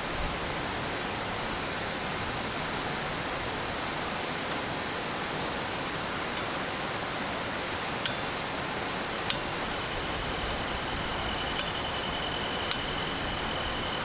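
Mountain stream running high and fast with rainy-season water, a steady rushing hiss. A few sharp light clicks or clinks stand out at intervals, and a faint steady high tone comes in about ten seconds in.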